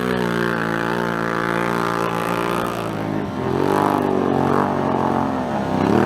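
Side-by-side UTV engine running hard through mud. It holds a steady pitch for about three seconds, then revs up and down, dropping sharply near the end and climbing again.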